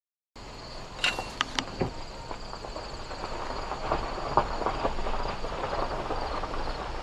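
Insects calling in a steady, evenly pulsing high chorus over a summer field. Several sharp clicks come about a second in, then irregular crunching knocks, over a low rumble.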